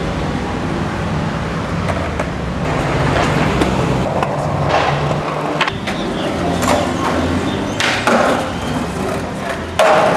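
Skateboard wheels rolling on hard, smooth ground with a steady rumble, broken by several sharp clacks of the board popping and landing in the second half.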